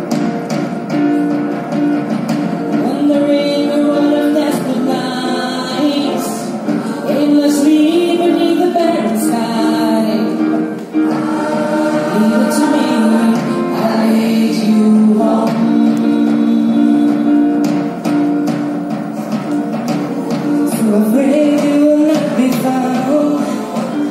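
Mixed gospel choir of men and women singing a sustained, flowing passage together, accompanied by keyboard.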